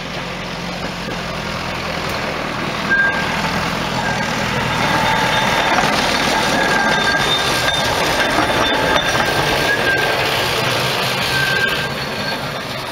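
Small narrow-gauge railcar running past, its engine and rolling noise building to a peak and fading near the end. A thin high squeal comes in and out from about three seconds in.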